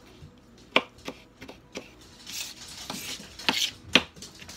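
Kitchen knife chopping a tomato on a plastic cutting board: a handful of sharp knocks of the blade on the board, with a stretch of scraping in the middle.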